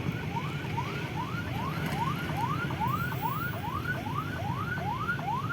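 Electronic warning siren sounding a rapid rising yelp, each sweep climbing in pitch and snapping back, about three times a second.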